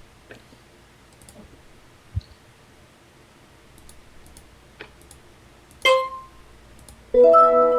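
Faint computer mouse clicks and a soft thud, then a short electronic ding, and near the end a louder electronic chime of several notes sounding together that rings on.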